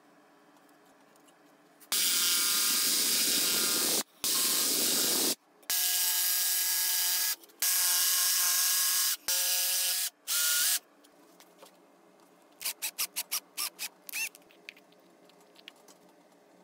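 Jigsaw cutting through a pine board, run in several bursts of a few seconds each with short stops between them. Near the end comes a quick series of light clicks.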